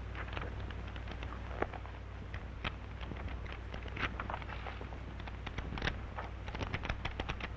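Crackling and scattered sharp clicks of a worn old soundtrack over a steady low hum, with the clicks growing denser near the end.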